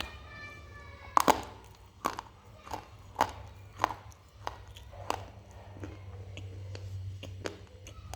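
Multani mitti (fuller's earth) being bitten and chewed close to the microphone: a series of sharp, dry crunches, about one a second, the loudest just after a second in.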